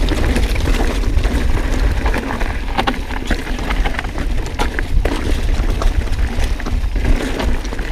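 Mountain bike rolling fast down a rough, rutted dirt trail: a continuous low rumble of tyres and suspension over the ground, with frequent clicks, knocks and rattles from the bike hitting rocks and ruts.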